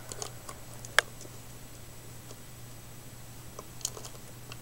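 A few light clicks and taps as a collapsible LED camping lantern is handled, with one sharp click about a second in.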